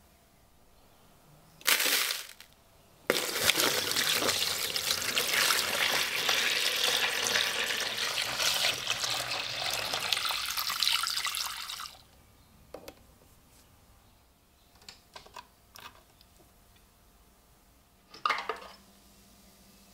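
Water is poured in a steady stream into a plastic tub for about nine seconds, splashing down onto the submerged ax head and then stopping. A few small clicks follow, and near the end there is a short clatter as a metal crocodile clip is fixed to the copper wire.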